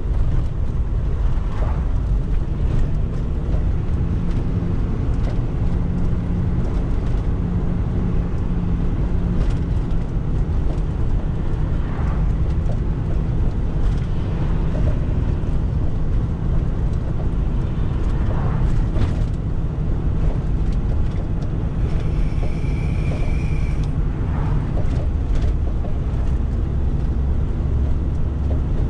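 Tow truck driving on the road, heard from inside the cab: steady engine and road rumble. A brief high-pitched tone sounds for about two seconds near the end.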